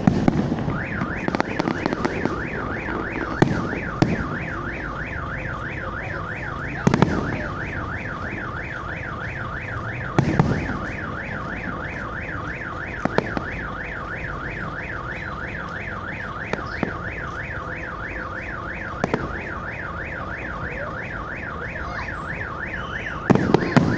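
Electronic car alarm siren sounding continuously in a fast up-and-down warble, several sweeps a second. It starts about a second in and stops shortly before the end. Firework bangs go off about six times beneath it.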